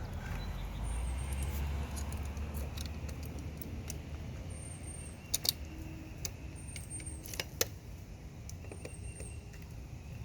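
Small metallic clinks and clicks of screws and light-fixture hardware being handled, over a low steady rumble. The sharpest clicks come in two quick pairs, about halfway through and again about three quarters through.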